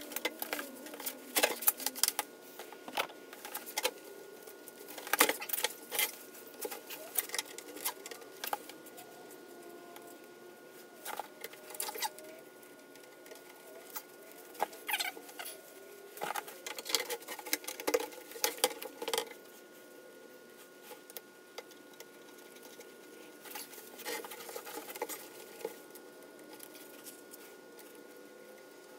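Irregular clicks, scrapes and rubbing from gloved hands handling a steel fuel tank and its straps, coming in clusters with quieter gaps between.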